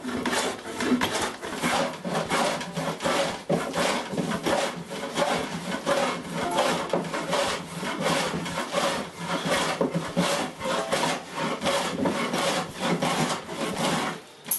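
Hand tool working pallet wood in steady back-and-forth strokes, about two a second.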